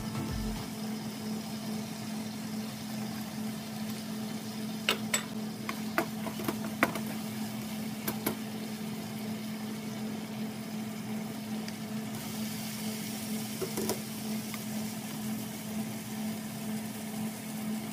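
Bell peppers frying in a non-stick pan, with a steady sizzle over a constant low hum from the stove or range hood. A few short knocks of the spatula against the pan come in the middle and once near the end.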